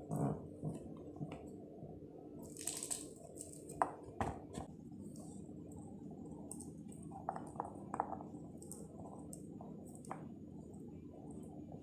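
Scattered small clicks and soft crackles of a pomegranate being pulled apart by hand, its seeds dropping into a plastic container, over a steady low hum.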